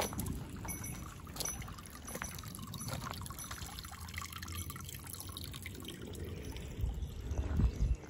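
Spring water trickling from a bamboo spout into a stone basin, a steady pouring patter. A few low thumps come near the end.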